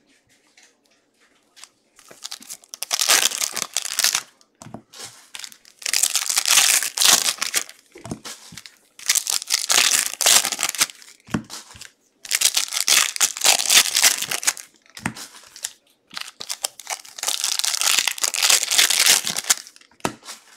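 Trading card pack wrappers being torn open and crinkled by hand, in five bursts of crackling a few seconds long with short pauses between them.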